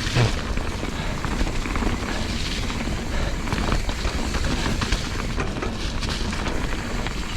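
Mountain bike descending a rough, wet trail: a steady rush of wind buffeting the microphone, with tyre noise and many small rattles and knocks from the bike.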